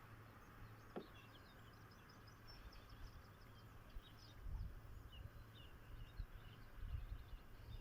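Faint outdoor birdsong: many short, high chirps from small birds. A single click comes about a second in, and a low rumble rises from about halfway through.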